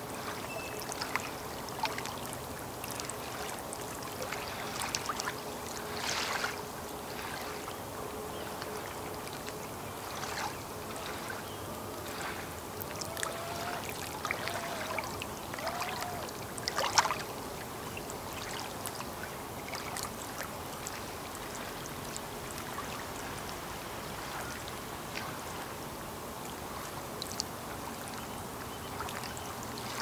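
Small waves lapping against the lake shore, with irregular little splashes and gurgles, the loudest one about halfway through. A faint steady hum sits under the water for the first half.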